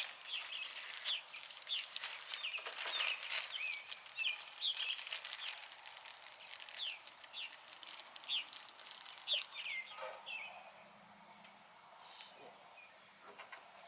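A bird singing: a long run of short, high, down-slurred chirps, several a second, for about ten seconds before it trails off. A few faint clicks are mixed in.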